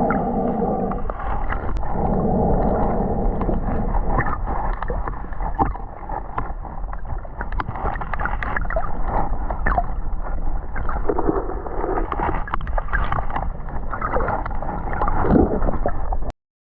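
Underwater sound picked up by a submerged camera: a steady low rumble with gurgling water movement and many scattered clicks and crackles. It cuts off suddenly near the end.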